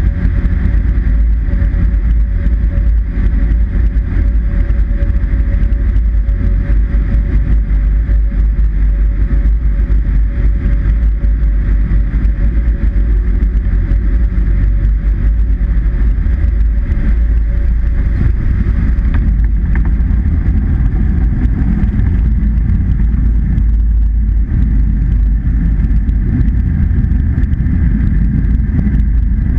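Cessna 152's piston engine and propeller at low power with wind noise, heard inside the small cabin, a loud steady drone through approach, touchdown and rollout. A steady tone within the drone fades out about two-thirds of the way through.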